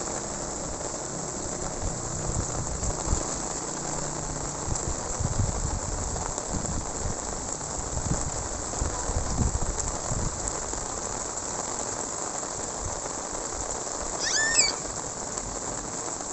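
Steady rain falling, an even hiss throughout, with a few low thuds in the first half and a brief high-pitched call near the end.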